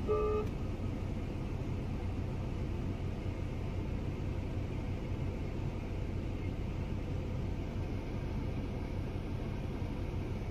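Steady low rumbling background noise, even in level, with no distinct events.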